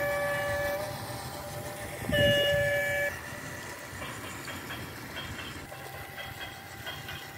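A toy model train's electronic horn sounds one note that ends about a second in, then a second, louder note about two seconds in that lasts about a second. After it comes the train's running rumble with regular clicks, about two to three a second.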